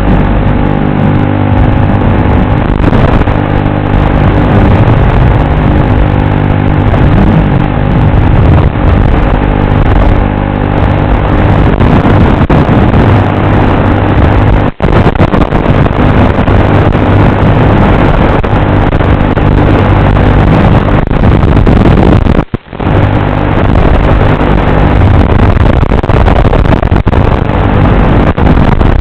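FPV drone's motors and propellers buzzing loudly and steadily, dropping out sharply for a moment twice.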